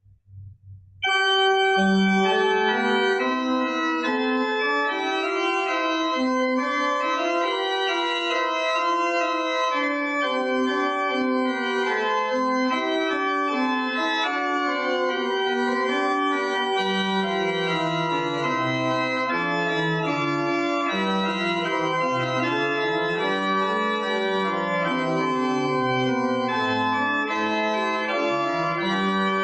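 Church organ playing a postlude: sustained chords over a bass line that moves up and down, starting abruptly about a second in.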